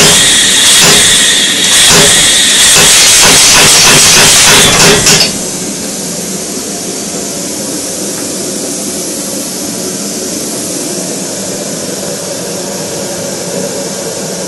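Kinyon-style pneumatic air hammer cycling, its ram striking the die in a rapid series of blows over loud air-exhaust hissing. It cuts off suddenly about five seconds in, giving way to the steady rushing of a forge burner.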